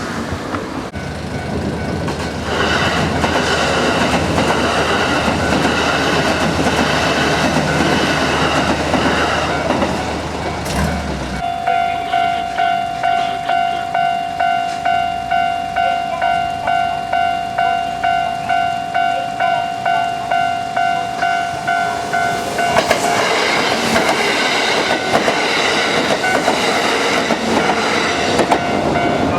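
An electric train runs past a railway level crossing with a steady rumble that cuts off about 11 seconds in. The crossing's warning bell then rings in a steady rhythm, about two strikes a second. About 22 seconds in, another train comes through, rumbling over the still-ringing bell.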